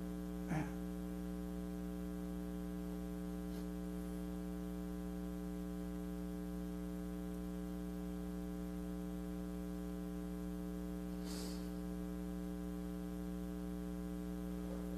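Steady electrical mains hum with a ladder of overtones, picked up in the audio chain. A brief louder sound breaks in about half a second in, and a faint hiss around eleven seconds in.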